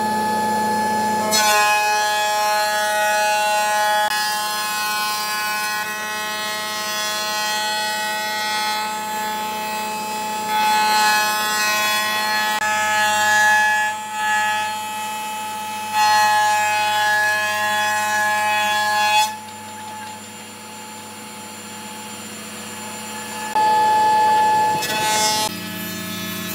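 Woodworking power tools running with a steady whine of several held tones. The sound changes abruptly a few times and is quieter for a few seconds about two-thirds of the way through.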